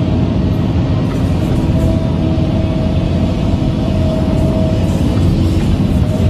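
Excavator's diesel engine running steadily with a deep rumble, with music laid over it.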